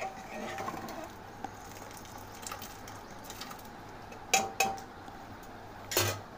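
Steel ladle stirring boiled kidney beans and their cooking liquid in an open pressure cooker: soft sloshing, with a few clinks of ladle on the metal pot, two close together about four seconds in and a louder knock near the end.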